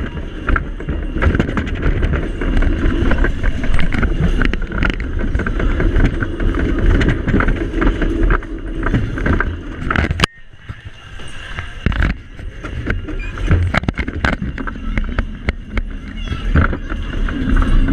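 Dodgem car running on the track, heard from on board: a steady low rumble with frequent knocks and clatters. About ten seconds in a sharp crack sounds and the rumble drops away, building up again near the end.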